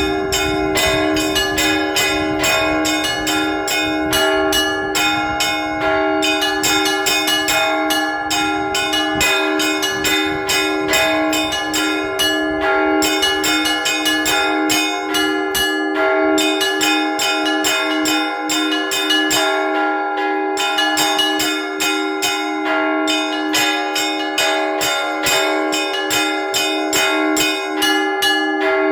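Orthodox church bells rung by hand from a bell tower: several bells struck in a quick continuous rhythm, their ringing overlapping, with a lower bell sounding steadily underneath.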